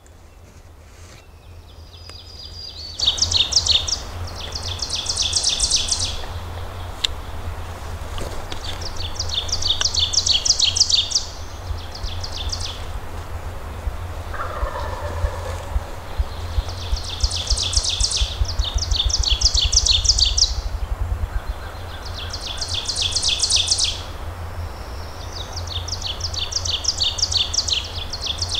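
A bird repeating a rapid, high-pitched trill, each trill about a second and a half to two seconds long, often two back to back, coming every few seconds from about three seconds in. A steady low rumble runs underneath.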